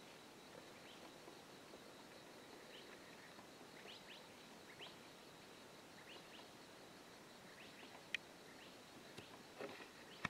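Near silence with faint outdoor ambience and scattered short, downward-sliding bird chirps. A single sharp click comes about eight seconds in, and another right at the end.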